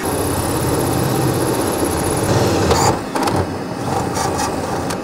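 Cordless drill cutting through the van's sheet-metal panel with a 7/8-inch hole saw, with a vacuum running steadily at the cut to suck up the metal shavings. A fine high rattle runs through the first two seconds, and there are rougher grinding bursts around three and four seconds in.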